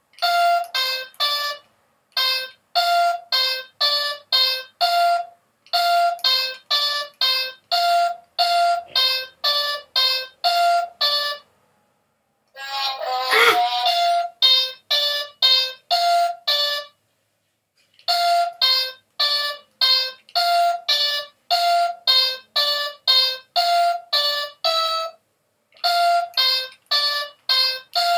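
Handheld electronic memory game (Mind Maze) beeping on and on: short, same-pitched electronic beeps, about three a second, in runs broken by brief pauses. About thirteen seconds in there is a louder burst of a different, wavering sound.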